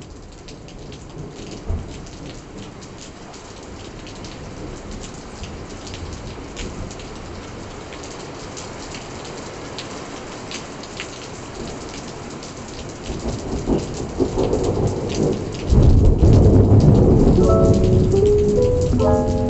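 Steady rain falling, with many small drop ticks. Thunder rumbles in about two-thirds of the way through and grows loud near the end, and a few soft musical notes come in over it at the very end.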